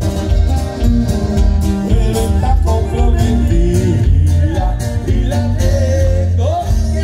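Norteño band music with plucked strings over a steady bass line and a regular beat, with some singing.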